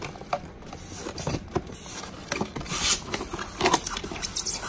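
Rustling and scraping of packaging being handled as parts are lifted out of a kit box: a foam insert and cardboard rubbing against the foam tray, with plastic bags crinkling. It comes as irregular rustles and scrapes, loudest about three to four seconds in.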